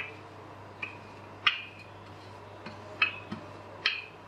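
Wooden rolling pin clicking against the countertop while flattening a large round of layered wheat-flour dough: about five sharp, short clicks at uneven intervals.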